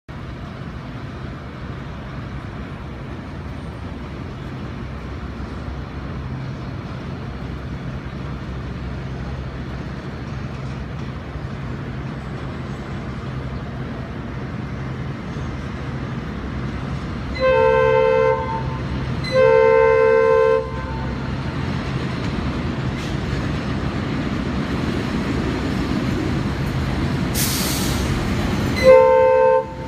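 R156 (MPI MP8AC-3) diesel work locomotive approaching with a low, steady engine drone that grows slowly louder. A little past halfway it sounds its multi-tone horn in two blasts of about a second each, and just before the end there is a short hiss and then a short horn toot.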